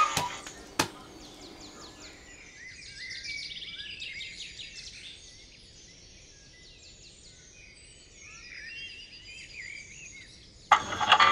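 Faint birds chirping and trilling after a smartphone alarm ringtone stops. There is a single click about a second in, and the alarm ringtone starts again loudly near the end.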